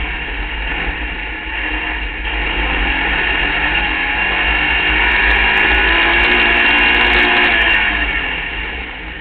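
Open-wheel hill climb race car's engine running hard at high revs, a high buzzy note heard onboard with wind buffeting the microphone. The revs climb and it grows louder through the middle, then eases off near the end.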